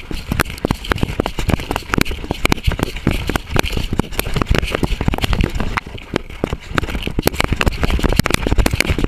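Dense, irregular knocking, scraping and low rumble from a collar-mounted camera jostling on a coonhound as the dog moves through brush, over a steady high hiss.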